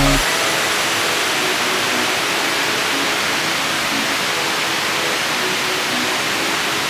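Waterfall: a steady rush of water falling and splashing.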